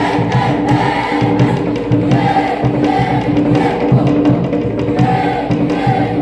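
Group of children singing a Cook Islands Māori song in chorus, with a steady held note beneath the voices and sharp percussion strokes keeping a steady beat.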